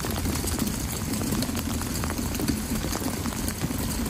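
A car on yellow wheel dollies being pushed by hand across wet concrete: the dolly casters and tyres roll with a steady low rumble and hiss.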